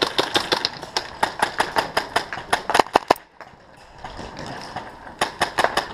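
Airsoft Tippmann M4 firing rapid semi-automatic shots, several a second, for about three seconds. It pauses, then opens up again in another quick string near the end.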